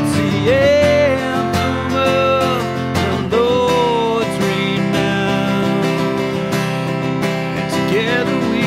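A man singing a worship song and accompanying himself on a strummed acoustic guitar. His voice holds long notes over the steady strumming.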